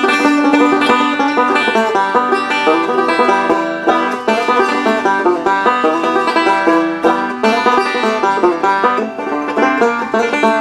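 Banjo fingerpicked with a thumb pick by a player about a month into learning: a steady stream of quick plucked notes ringing over a held lower note.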